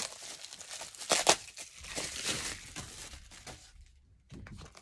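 Plastic bubble-wrap mailer crinkling and rustling as a palette is slid out of it, with a sharp crackle about a second in. The rustling dies away near the end.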